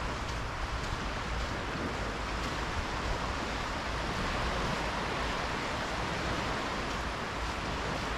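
Small waves washing steadily onto a sandy shore in shallow water, with a low wind rumble on the microphone.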